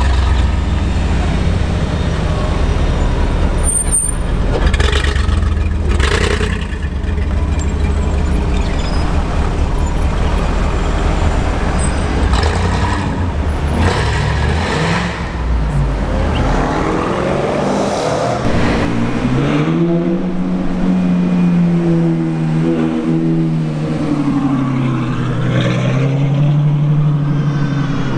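Mercedes-Benz SLR McLaren Roadster's supercharged V8 with a deep, low exhaust rumble as it crawls through traffic. In the last third a clearer engine note rises and falls several times as a car pulls away: the Ferrari F12's V12.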